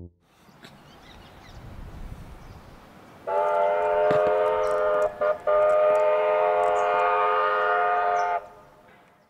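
Steam locomotive chime whistle sounding one long blast of several notes at once, with a short break about two seconds into it, after a faint rising rumble. The blast stops and dies away near the end.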